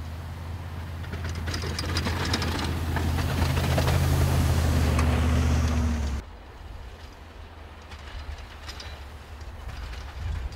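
Ford F-150 pickup's engine running steadily under load as the truck pushes a Boss plow through deep snow, with a hiss of churned snow over the low engine hum, growing louder until it cuts off abruptly about six seconds in. After that, fainter engine and snow noise with a few light clicks.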